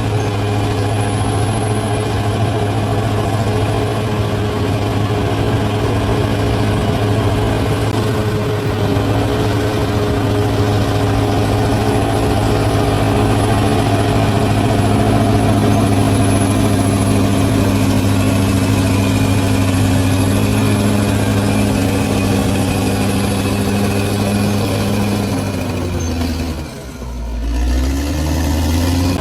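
Large bulldozer's diesel engine running steadily at working speed. Near the end its note and loudness drop briefly, then rise again.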